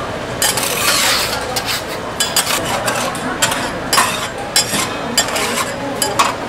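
Sandwich-shop kitchen clatter: many short clicks and clinks of utensils and containers, several a second, over a steady background hiss.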